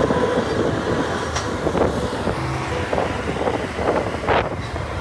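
Side-by-side utility vehicle driving over a rough dirt ranch track: steady engine and tyre noise with irregular clattering knocks as it jolts over the bumps.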